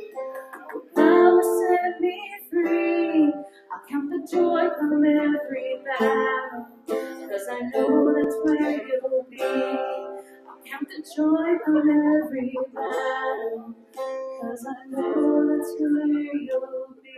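Worship song: a voice singing in phrases over strummed acoustic guitar.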